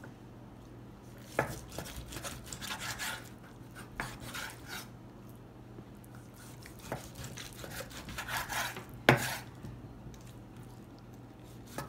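Kitchen knife slicing raw beef suadero on a wooden cutting board: scraping cuts through the meat and fat, with the blade knocking on the board a few times, the loudest knock about nine seconds in.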